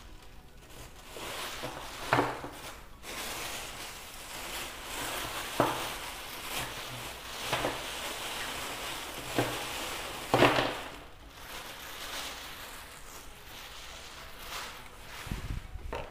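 Thin black plastic bag rustling and crinkling as hands rummage through it and lift it, with a few sharp knocks from the parts inside, the loudest about ten seconds in.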